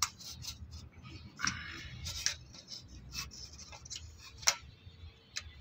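Small clicks and taps of plastic switch and socket modules and wire being handled on a tabletop, with a rustling scrape around a second and a half in and a sharper click near the end.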